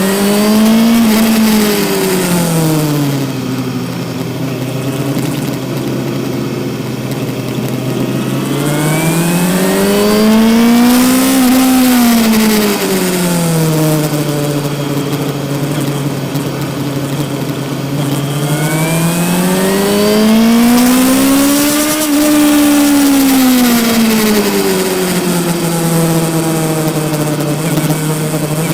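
Yamaha R6 inline-four engine heard onboard while riding: the revs climb and drop back three times, with a steady lower engine note in between. Wind noise runs underneath.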